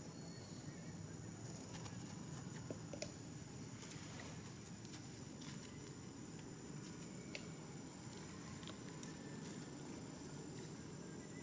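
Faint outdoor ambience: a steady low rumble with scattered light clicks and taps, and a thin steady high-pitched tone.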